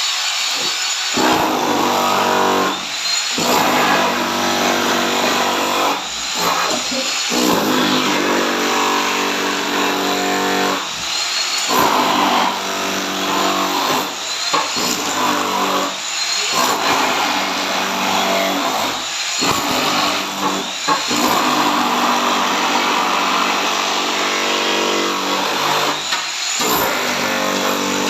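Electric power tool motor running in repeated bursts of a few seconds each, with short pauses where it is let off and started again.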